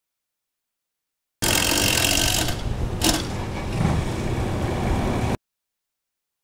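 Dead silence, then about four seconds of steady outdoor rushing noise with a low rumble and a single click about three seconds in, then dead silence again.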